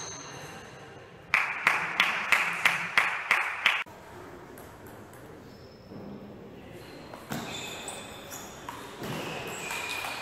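Table tennis ball clicking in quick, even succession off bats and table in a rally, about three hits a second for two and a half seconds. Later comes a second, softer and less regular run of hits.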